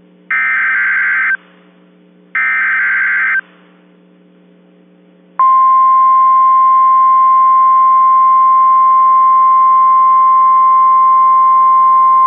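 NOAA Weather Radio Emergency Alert System signal: the last two of the three SAME header data bursts, each about a second long with a second's gap between them. After a short lull, the steady one-pitch 1050 Hz warning alarm tone starts about five seconds in and is the loudest part. The tone announces a new warning, here a hurricane warning.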